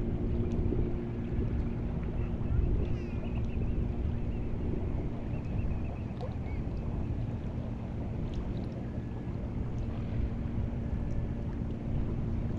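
Seashore ambience at high tide: a steady low rumble of wind and water with a constant low drone running under it. A few faint, short, high chirps sound over it.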